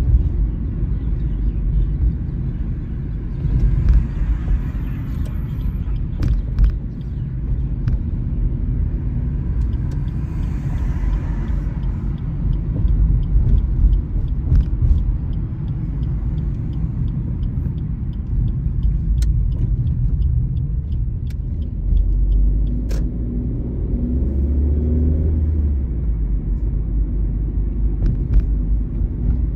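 Car driving through city streets: a steady low rumble of engine and road noise, with a few sharp clicks here and there and a stronger low hum for a few seconds near the end.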